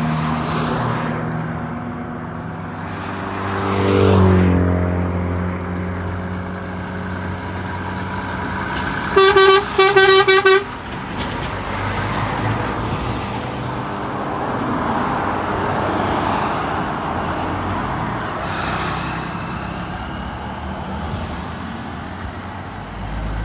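Volvo FH semi-truck's diesel engine pulling away, revving up about four seconds in. About nine seconds in there is a quick run of short, loud horn toots, followed by a steady rush of tyre and road noise as the truck passes and drives off.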